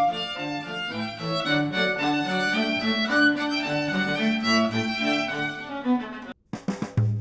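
Instrumental music led by bowed strings, played back through headphones and picked up by microphones. It breaks off briefly about six seconds in, and a different track starts near the end.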